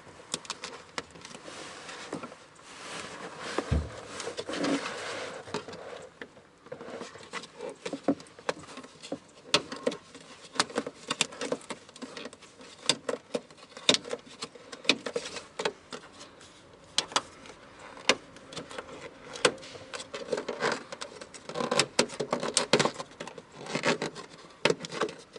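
Flathead screwdriver prying and scraping around a fuel pump access cover held down by sticky sealant: irregular clicks, ticks and scrapes as the sealant is broken and the cover lifted bit by bit.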